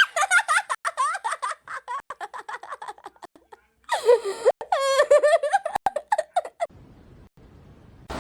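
A person laughing in quick, choppy bursts for about three seconds, then laughing again after a short pause, dying away near the end.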